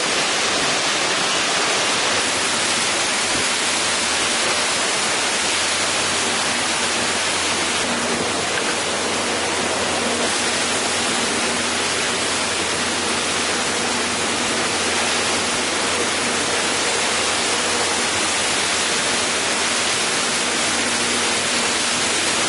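Hurricane wind and driving rain: a loud, steady rushing noise with no let-up.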